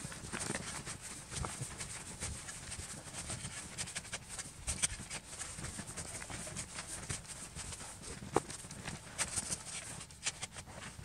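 A small snow shovel cutting into deep, light powder snow and tossing it aside, mixed with the crunch of snowshoes shifting in the snow. The crunches and scrapes come irregularly, with one sharper knock about eight seconds in.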